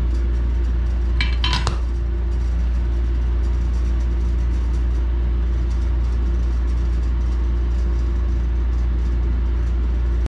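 Steady low background rumble, with a short metallic clink about a second and a half in as the aluminum soft-plastic bait mold is handled; the sound cuts off suddenly near the end.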